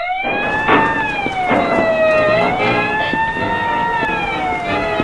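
Police siren wailing, starting suddenly and slowly rising and falling in pitch, with a few faint knocks beneath it.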